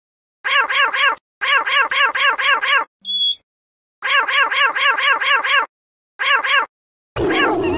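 Cartoon babble voice effect: one short, high-pitched, meow-like syllable repeated rapidly, about four a second, in several runs with short silent gaps. Near the end comes a brief, harsher, noisier sound.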